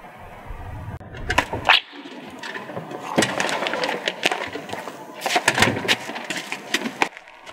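A glass storm door being unlatched and swung open, with clicks and knocks from its latch and frame, then footsteps on the step as the door falls shut.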